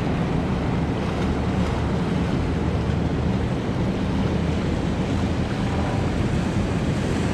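Sea surf washing and churning against the boulders of a rock jetty, a steady rushing, with wind buffeting the microphone.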